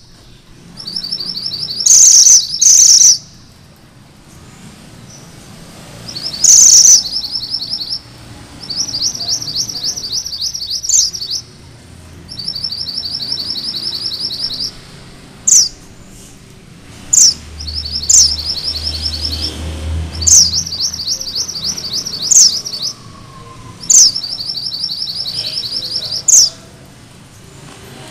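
Mantenan gunung merah, a red-and-black minivet, singing its rolling song (ngerol): rapid high trills in phrases of one to three seconds, broken up by short, sharp notes that drop in pitch, about eight of them.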